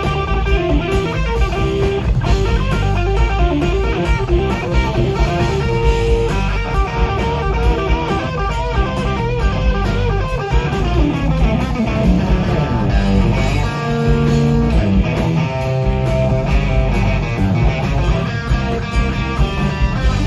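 Live rock band playing an instrumental passage: a lead electric guitar over bass guitar and drums, loud and steady, with a long falling run of notes about halfway through.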